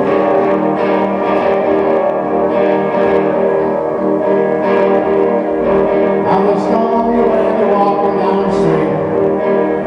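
Slow, easy improvised guitar jam: plucked and strummed guitar notes ringing on steadily.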